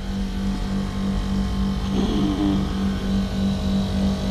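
TCL ductless split air conditioner running in its defrost cycle with the fan stopped: a steady, kind of noisy compressor hum with a strong low tone.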